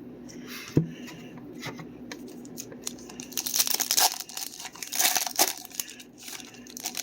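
Foil wrapper of a trading card pack being torn open and crinkled, with a sharp click about a second in and the loudest ripping around three and a half and five seconds in.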